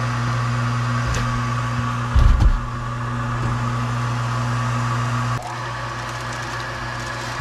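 Newly installed gas furnace inducer motor running with a steady hum on its first test start after replacement. A brief low thump comes about two seconds in, and about five seconds in the hum drops slightly in level and tone.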